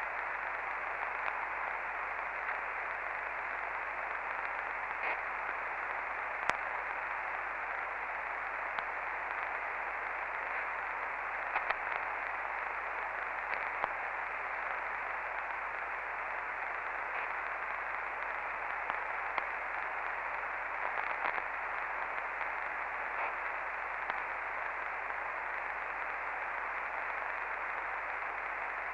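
Steady static hiss from a CB radio receiver on 27.555 MHz while no station is talking, with a few faint clicks.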